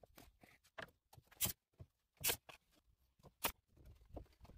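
A series of short, sharp clicks, the loudest three coming about a second apart, with near silence between them.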